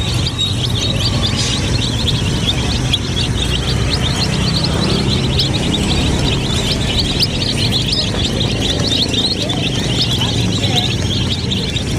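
A flock of domestic chicks peeping nonstop, many short high calls overlapping, over a steady low hum.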